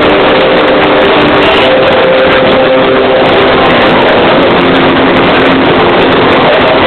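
A live band playing loud, with held notes that shift every second or so over a dense, overloaded wash of sound.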